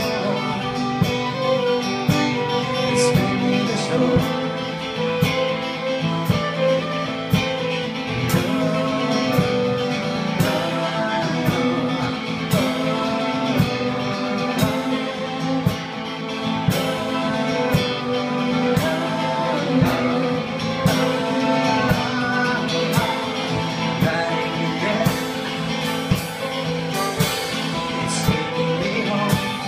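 Live band playing a song: singing over strummed acoustic guitar, fiddle and keyboard, with a steady beat of about two strokes a second.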